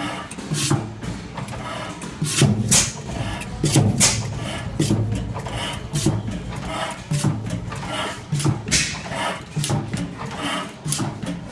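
Industrial Iron Works horizontal single-cylinder stationary engine running, its heavy flywheels turning. It beats out an uneven rhythm of low thumps and sharp clicks, about two a second.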